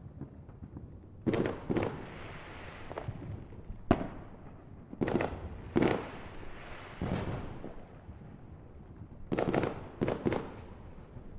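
Fireworks going off: a series of booms and bangs in small clusters, several trailing off in a crackling, echoing tail, with a single sharp crack about four seconds in.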